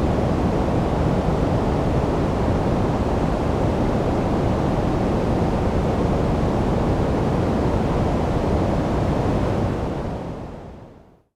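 Steady electronically generated white noise, a deep, even hiss with no rhythm or swells. It fades away to near silence near the end.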